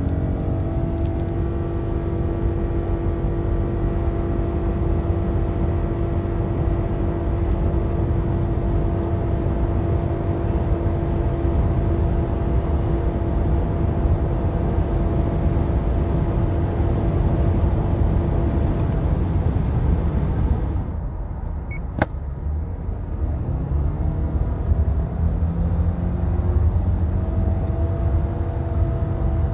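2021 Subaru Crosstrek's 2.5-litre boxer four-cylinder under full-throttle acceleration, heard inside the cabin: the CVT holds the engine at a steady drone while speed climbs. About two-thirds of the way through the sound dips and there is a single sharp click. Then the engine note rises again and settles into another steady drone near 5,800 rpm.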